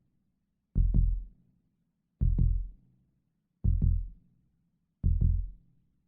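Slow heartbeat sound effect: four deep double thumps, lub-dub, evenly spaced about a second and a half apart.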